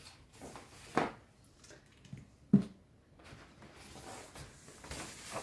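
A hardcover book and its paper dust jacket being handled, with soft rustling and a couple of light knocks, the sharpest about two and a half seconds in.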